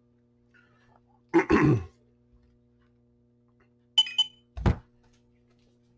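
Quiet handling at a desk. About a second and a half in there is a short vocal sound from the man, then a sharp click and a dull thump about two-thirds of the way through as comic books in plastic bags are handled.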